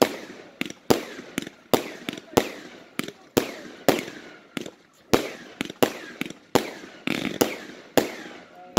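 Aerial fireworks going off in a rapid series, about two bangs a second, each bang trailing off before the next, as from a firework battery firing shot after shot.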